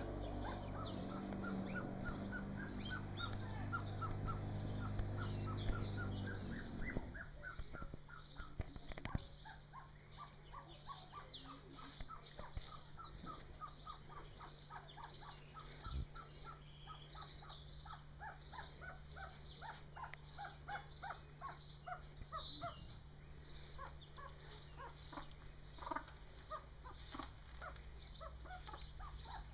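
Golden pheasant chicks peeping: a long run of short, high peeps, several a second. A low steady engine-like hum underneath stops about seven seconds in.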